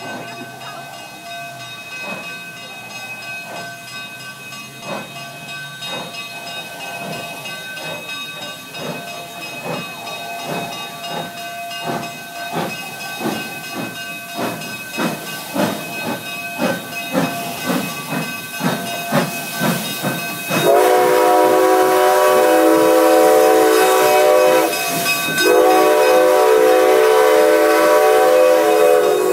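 Durango & Silverton narrow-gauge steam locomotive working, its exhaust chuffs coming faster and louder over a steady hiss of steam. About twenty seconds in, its steam whistle sounds a loud multi-note chord in two long blasts.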